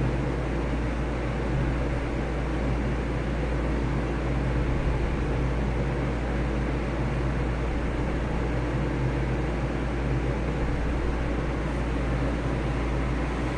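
Steady droning noise with a low hum and a hiss, unchanging throughout, with no distinct knocks or clicks.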